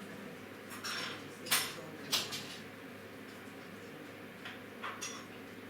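Dishes and cutlery clinking in a few short separate clatters, the loudest about a second and a half in and again a moment later, with smaller clinks near the end, over a steady room hum.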